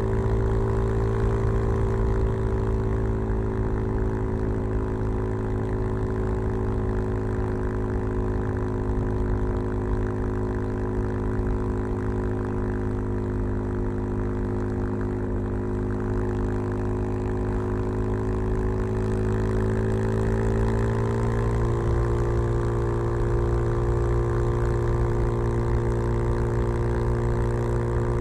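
Suzuki DR-Z 400 supermoto's single-cylinder engine running steadily through a LeoVince V3 silencer with its dB killer fitted, its pitch easing slowly down, then rising a little about two-thirds of the way through and holding there.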